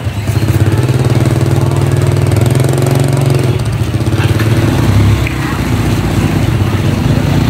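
Small engine running steadily at an even speed, its note changing slightly about halfway through.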